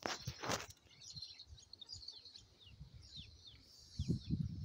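Many small birds chirping, a steady stream of short, high, downward-sliding chirps. A brief loud hiss comes in the first second, and a low rumble near the end.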